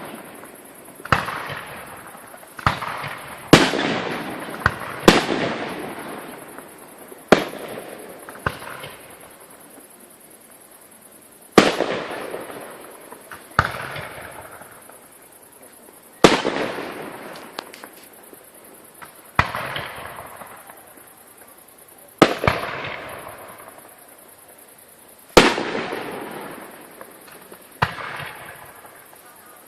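Aerial fireworks display: shells bursting in sharp bangs about every one to three seconds, each bang followed by a long fading echo and crackle, with a pause of about three seconds near the middle.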